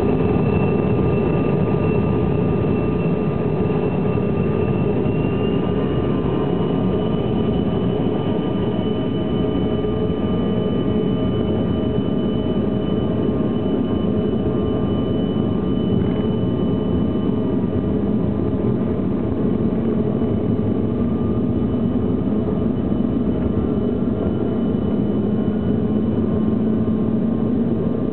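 Airliner jet engines running at takeoff power: a steady, loud rush with a high whine that rises slightly about six seconds in.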